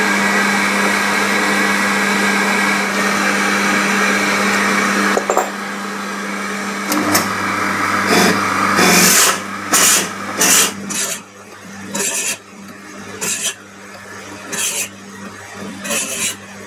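A drill press and its dust-extraction hood run with a steady machine hum. After about five seconds the sound changes, and the bit cuts into a solid walnut block in short, repeated bursts of cutting noise, roughly one a second.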